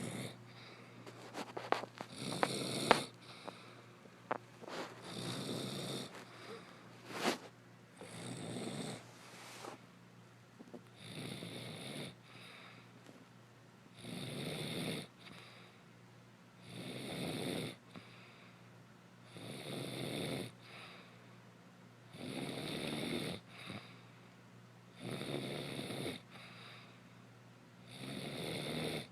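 A woman snoring steadily in her sleep: about ten snores, one roughly every three seconds, each lasting about a second. A few sharp clicks come in among the first few snores.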